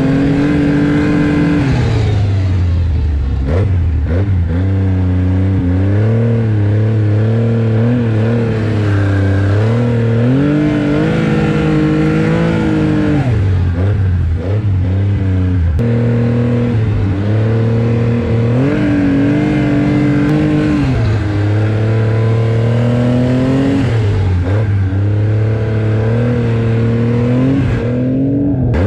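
Snowmobile engine heard from on board under way, its pitch rising and falling again and again as the throttle is opened and eased off.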